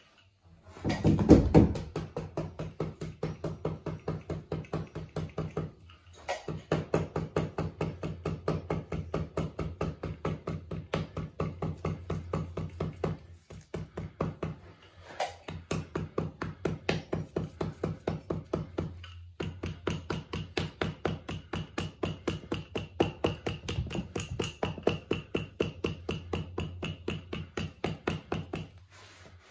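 Hammer tapping rapidly along a carpet edge, about four light blows a second in runs with short pauses, driving the cut edge of the carpet down and tucking it in against the vinyl plank flooring at a doorway transition.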